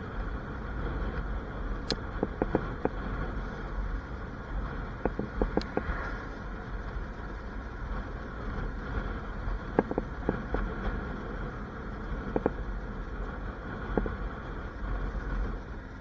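Motorcycle cruising at about 30 mph: steady engine and wind rumble, with a few short sharp clicks and knocks scattered through it.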